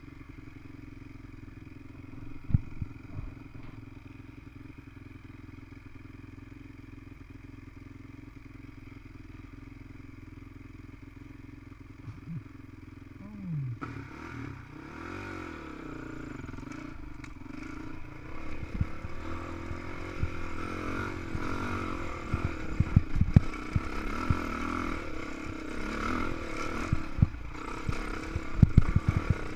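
Honda CRF450X single-cylinder four-stroke dirt bike engine idling steadily, then revving and pulling away about halfway through. It runs up and down in pitch over rough ground, with repeated clattering knocks from the bike in the second half.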